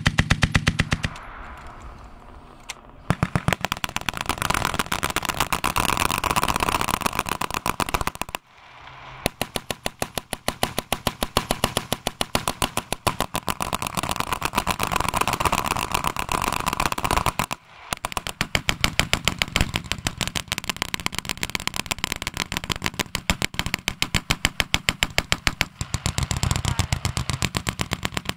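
A line of water-cooled Vickers machine guns firing together in long, steady bursts of rapid fire. The shots thin out a little after the first second, and the fire breaks off briefly twice before carrying on.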